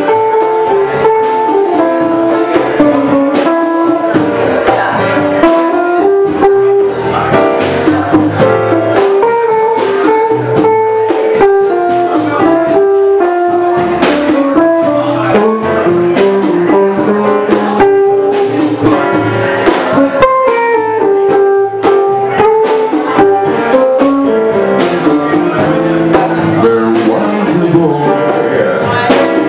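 Jazz sextet playing live: an instrumental passage, with a single-note melody line moving over bass notes and regular drum and cymbal strikes.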